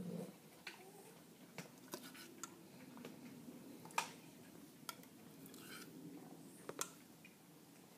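Metal spoon scooping food out of a tin can and tapping it off onto the feeding spot: faint scattered clicks and scrapes, the sharpest about four seconds in.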